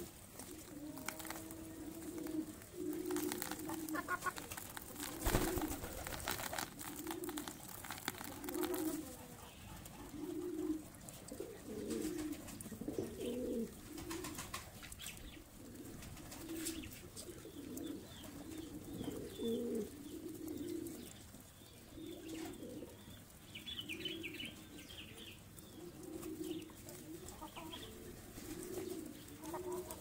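Flock of domestic pigeons cooing over and over in low, repeated notes, with scattered sharp clicks and one louder knock about five seconds in.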